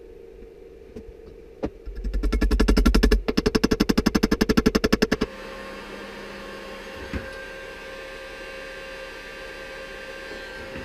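A loud, rapidly pulsing mechanical rattle for about three seconds, then a handheld electric heat gun running steadily with a fan whine.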